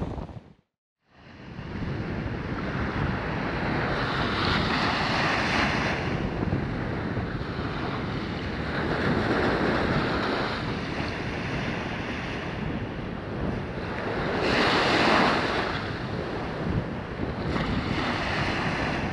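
Small waves washing up onto a sandy beach, the surf swelling and easing every few seconds, with wind noise on the microphone.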